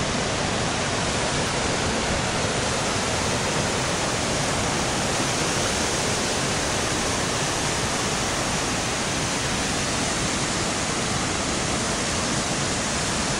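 Steady rushing water of the Presque Isle River's rapids and Manido Falls, an even, unbroken rush with no lulls.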